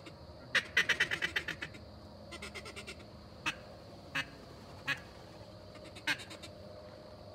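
Duck quacks: a fast run of about a dozen quacks that fades as it goes, a softer run a moment later, then four single quacks spread over the next few seconds.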